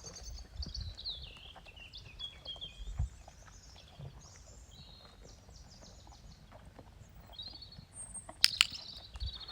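Small birds singing and chirping, with a few soft, low thuds of a horse's hooves on the ground. There are two sharp knocks near the end.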